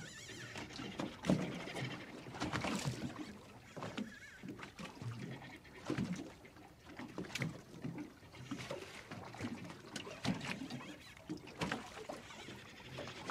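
Water slapping and lapping against the hull of a small drifting fishing boat in irregular surges.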